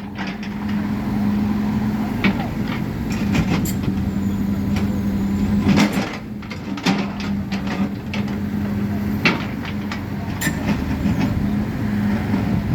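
Heavy road-construction machine's engine running steadily, with intermittent sharp scrapes and knocks as it digs at the road surface, barely making any impression on it.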